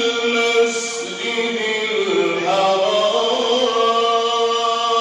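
A man reciting the Quran in the melodic, drawn-out concert style. He holds a long ornamented note, the pitch dips and turns about two seconds in, and then he holds a higher note again.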